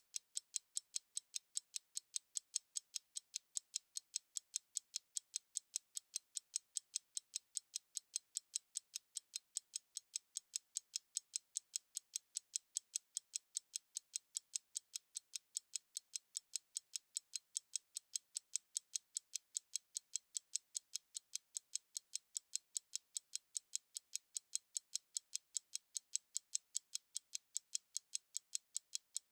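Analog stopwatch ticking: a rapid, perfectly even run of thin, bright ticks, several a second, with no low end.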